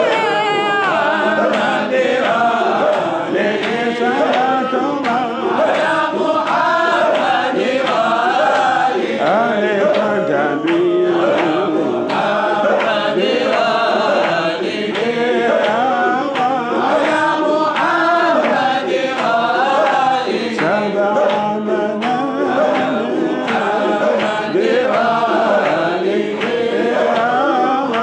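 Men chanting a devotional Sufi dhikr in Arabic, a lead male voice singing a flowing melody into a microphone without pause.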